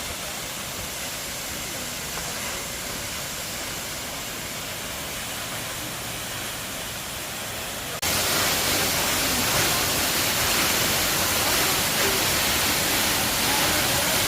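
Water of the Giessbach Falls rushing steadily. The sound becomes suddenly louder and brighter about eight seconds in.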